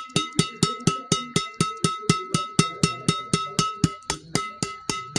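Strings of a freshly restrung badminton racket tapped rapidly and evenly, about four to five taps a second. Each tap gives a sharp ping with a high ringing note, the sound that shows how tight the string bed is.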